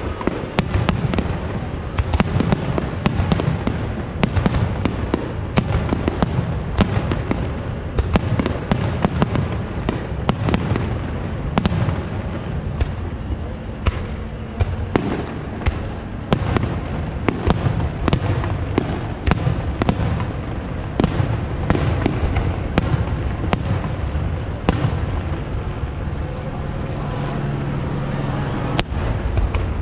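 Aerial firework shells of a starmine finale bursting in a rapid, unbroken barrage: many sharp bangs a second over a continuous rumble of launches and crackle.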